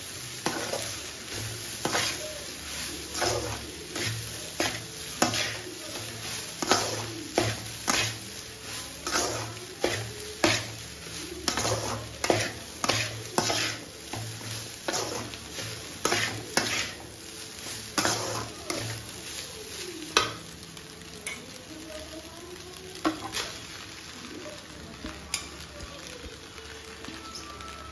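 Steel ladle clanking and scraping against an aluminium kadai as cooked rice is stirred into carrot masala, with a sizzle from the hot pan underneath. The strikes come about once or twice a second, then thin out after about 20 seconds.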